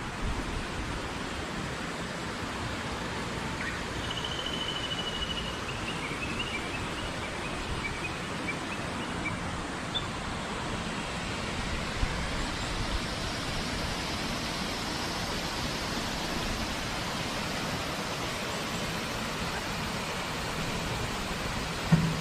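Steady rush of flowing river water, with a bird's short run of high, descending whistled notes a few seconds in.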